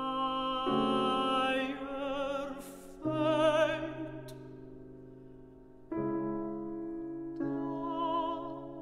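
Classical mezzo-soprano singing slow held notes with a wide vibrato over sustained piano chords. In the middle a piano chord dies away before a new chord enters about six seconds in, and the voice returns near the end.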